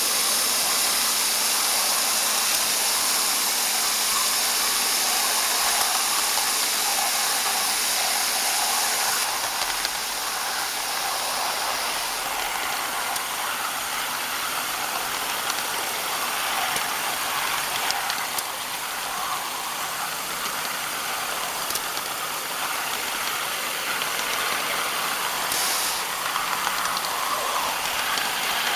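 A live-steam miniature locomotive running along the track, with a steady hiss of steam over rolling wheel and rail noise. The hiss is strongest at the start, eases off about a third of the way in, and has a brief extra burst near the end.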